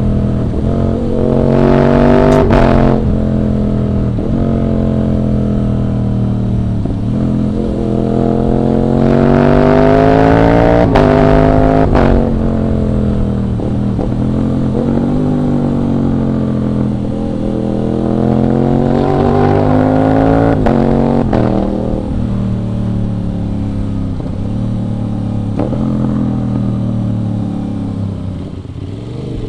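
Aprilia RS 660 parallel-twin engine on the move, revving up and easing off three times: the pitch climbs to a peak near the start, again near the middle, and again about two-thirds of the way in, dropping back to a steadier lower note between.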